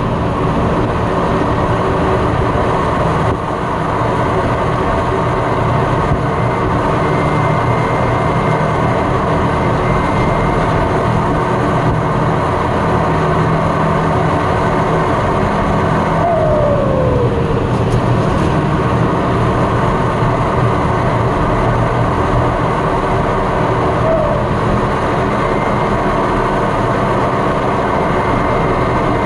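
John Deere 6230 Premium tractor's four-cylinder turbo-diesel running steadily under way, heard from inside the cab, with a thin, steady, high turbo whistle over the engine. A brief falling tone comes about halfway through.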